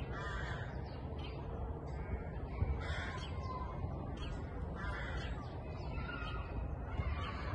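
Crows cawing, a string of separate calls every second or so, over a steady low background rumble.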